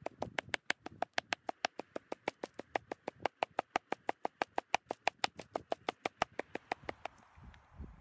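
Meat cleaver chopping chicken fillet into mince on a wooden cutting board: rapid, even chops, about six or seven a second, that stop about a second before the end.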